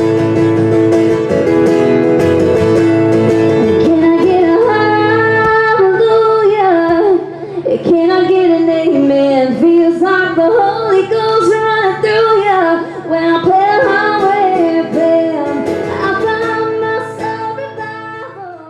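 Music with a woman singing over sustained accompaniment and plucked guitar; the voice line comes in about six seconds in and the music fades near the end.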